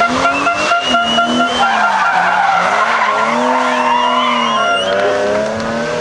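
BMW 3 Series (E36) rally car sliding through a corner, its tyres skidding and squealing on loose grit while the engine revs rise and fall. It then accelerates away, with a gear change about five seconds in.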